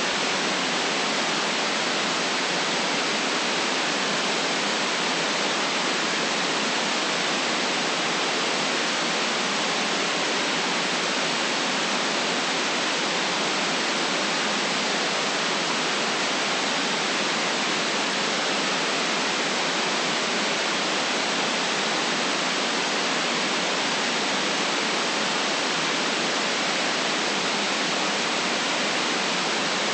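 Steady electronic white noise: an even, unchanging hiss with no deep rumble and no separate sounds in it.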